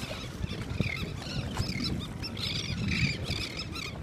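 A large flock of seagulls calling at once, many short high squawks overlapping without a break, over a steady low rumble.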